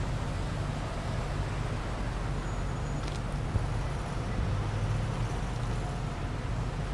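Cars idling and creeping forward in a slow queue: a steady low engine rumble that swells slightly as one car pulls past about four and a half seconds in. A single sharp click about three seconds in.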